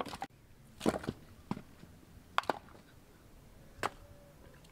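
Split firewood pieces knocking against each other as they are picked up and piled: a handful of sharp wooden clacks at irregular intervals, the loudest about a second in.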